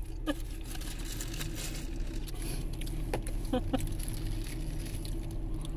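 Steady low hum of a car idling, heard from inside the cabin, with a few short clicks.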